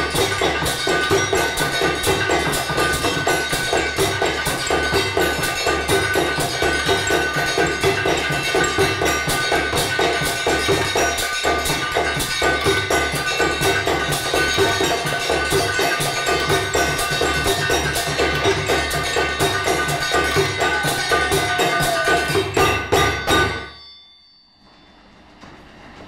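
Ensemble percussion played on old hammers, tools and other materials: a dense, fast rhythm of strikes and knocks with a steady ringing tone over it. The playing breaks off suddenly a couple of seconds before the end.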